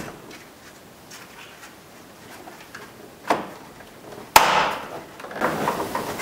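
Door trim being pressed into place on the mirror corner of a car door. A few faint clicks, then a sharp knock about four seconds in, followed by rubbing and scraping of the trim against the door.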